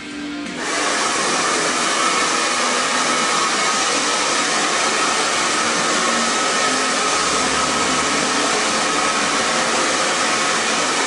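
Handheld hair dryer blowing steadily at close range, starting abruptly about half a second in: an even rush of air with a faint steady whine.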